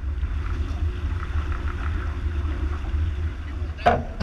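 Wind buffeting the microphone of an action camera aboard a J80 sailboat under sail, a steady low rumble, with water rushing past the hull faintly beneath it. A sharp knock near the end.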